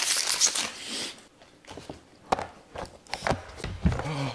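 A chip wrapper being torn open and crinkled, a loud rustle through the first second, followed by scattered crunches and clicks and a short low vocal sound near the end.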